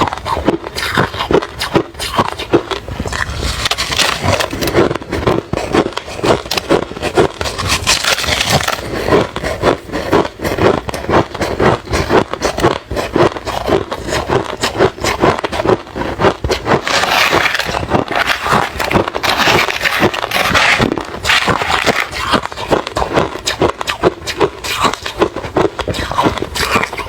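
Close-miked chewing of refrozen crushed ice: a steady run of rapid, crackling crunches as the chunks break between the teeth.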